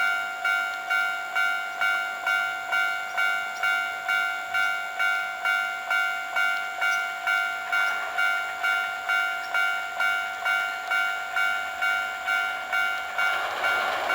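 Japanese level-crossing warning bell ringing in even repeated strokes, about two a second. An approaching train's running noise rises near the end.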